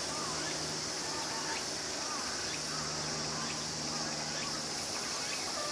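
Steady high-pitched hiss with faint, distant voices and a low steady hum: background ambience.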